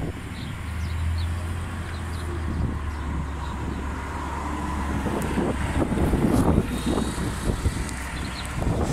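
New Flyer C40LF natural-gas transit bus pulling away and passing close by: a steady low engine drone, growing louder and rougher about five seconds in as it goes past and accelerates away.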